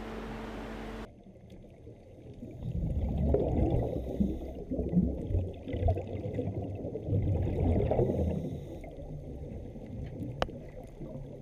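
A steady room hum for about a second, then a cut to muffled, gurgling underwater water ambience that swells and fades twice, with one sharp click near the end.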